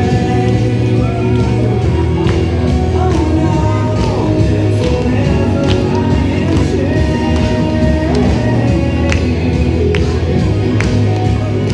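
Loud, upbeat worship song through a hall sound system: a woman singing lead into a handheld microphone over a heavy bass line and a steady beat, with a group of voices singing along.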